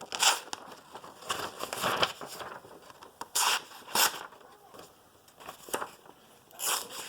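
Knife blade drawn along a sharpening rod in about half a dozen short scraping strokes, with pauses between them, honing the edge.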